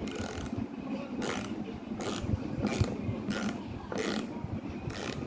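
Precision screwdriver undoing a screw on a hard drive, with short clicking strokes about once every three-quarters of a second as the driver is turned and reset.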